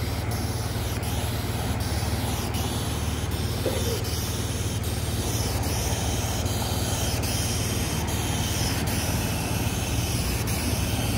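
Asphalt sealcoat spraying from a hand-held wand in a steady hiss, over a steady low engine hum.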